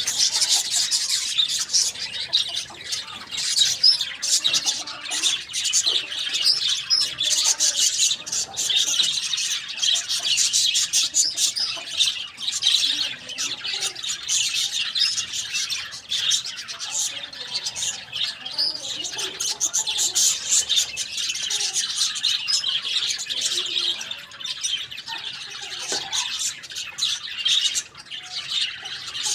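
Many birds chirping at once in a dense, continuous high-pitched chatter, with faint lower calls scattered underneath.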